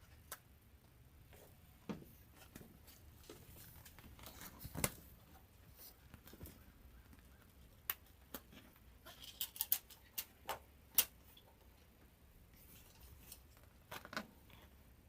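Transit curtain being handled and hung on its track: soft fabric rustling with scattered light clicks as the grommets go onto the track, a quick run of clicks about two thirds of the way through.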